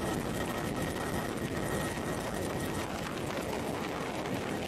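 Helicopter in flight: steady engine and rotor noise with a faint, steady high whine.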